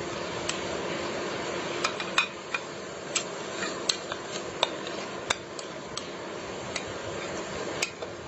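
A spoon tapping and scraping against a glass bowl as washed rice is emptied into a pot of water: about a dozen sharp, irregular clicks over a steady low hiss.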